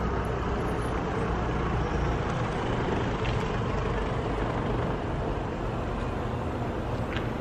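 Steady low rumble of road-vehicle noise, with no distinct events.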